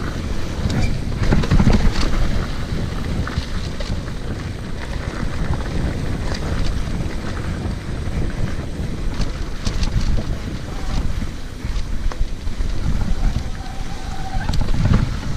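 Wind rushing over the microphone while a mountain bike rolls fast downhill over rough dirt trail, with many small rattles and knocks from the bike over bumps.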